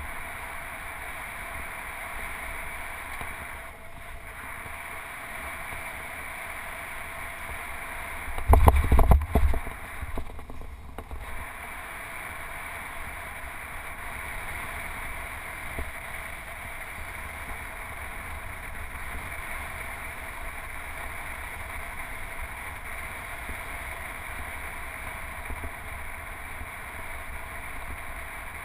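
Wind rushing over a handlebar-mounted GoPro and tyre hiss from a road bike rolling along a paved path, a steady noise throughout. About eight and a half seconds in comes a brief burst of loud knocks lasting about a second.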